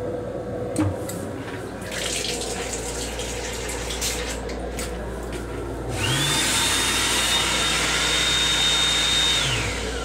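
Knock about a second in, then a sink faucet runs with a hissing water stream. About six seconds in, the built-in hand dryer's blower motor starts with a rising whine, runs steadily with a high tone, and winds down near the end.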